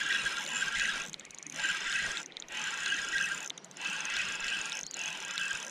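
Fishing reel being cranked to retrieve a swimbait, its gears whirring in about five spells of roughly a second each, with brief pauses between them.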